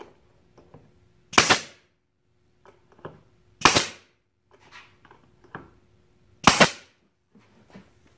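Pneumatic nail gun firing three times, sharp shots about two to three seconds apart, fastening pine boards. Faint knocks of wood being handled come between the shots.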